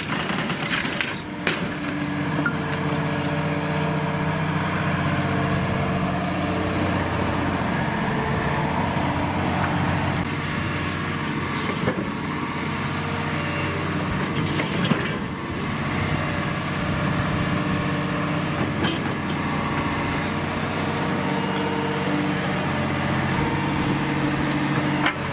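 Diesel engine of a large tracked hydraulic excavator working steadily, its pitch shifting as the arm and grapple move. A few sharp knocks and cracks come from debris and wood being broken up by the demolition grapple.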